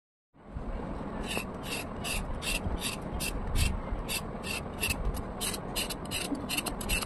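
Kitchen knife blade scraping the skin off a pointed gourd (parwal) in short, quick strokes, about three a second, starting about a second in.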